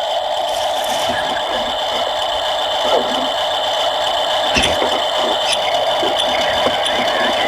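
Huina 1580 RC excavator's electric motors and gearboxes whining steadily, with a few light clicks and scrapes.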